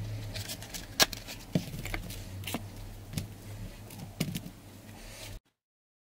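Hands handling a small cardboard phone stand on a tabletop: scattered light taps and knocks of cardboard and a phone against the table, the loudest about a second in, over a steady low hum. The sound cuts off abruptly near the end.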